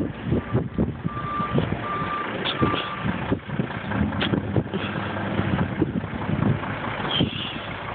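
A truck's reversing beeper sounding a run of evenly spaced beeps that stops about three seconds in, over a low engine hum and irregular low thumps.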